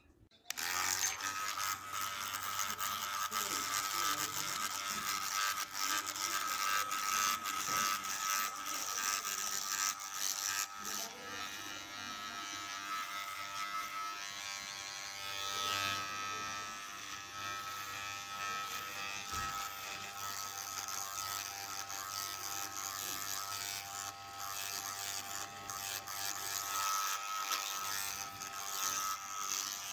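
Electric hair clipper buzzing steadily as its blade trims a beard, starting suddenly about half a second in.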